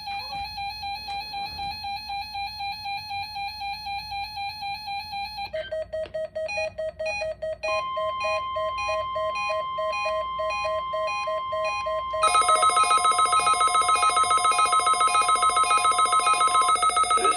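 Several weather alert radio receivers sounding their electronic alarms for the weekly test: a pulsing beep about three times a second, joined about five seconds in by a different beeping pattern. The NOAA Weather Radio steady warning alarm tone comes in near the middle and stops near the end, and a louder pulsing alarm from another receiver starts about two thirds of the way through.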